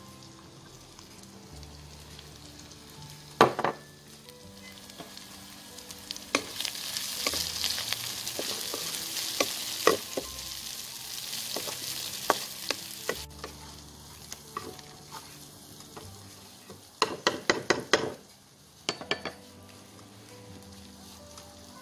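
Prawns with onion and curry leaves sizzling in a nonstick wok as they are stirred with a wooden spatula, the spatula knocking and scraping on the pan. The sizzling swells in the middle; there is a loud knock a few seconds in and a quick run of taps near the end.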